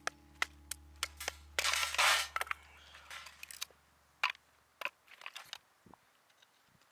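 A wooden baton knocking on the spine of a knife to split a small stick of firewood: a string of sharp, irregular knocks, with a louder crackling split about two seconds in.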